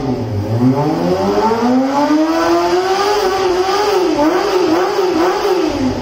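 Kawasaki Ninja ZX-25R's 249 cc inline-four engine with an aftermarket slip-on silencer, free-revving with no load. It climbs in one long rise to high revs, is blipped up and down three times at the top, and starts to fall as the throttle closes near the end.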